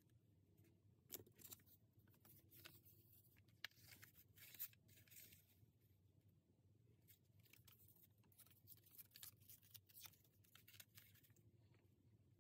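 Faint paper rustling and crackling as hands press and smooth a glued paper sheet down onto a journal page, with a few sharper crinkles about a second in and around four seconds in.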